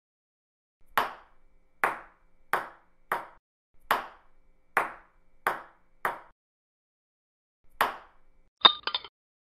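Ping-pong ball hitting hard surfaces: nine sharp, light clicks at uneven intervals under a second apart, then a pause. Near the end come two or three quick ringing pings as a ball lands in a glass.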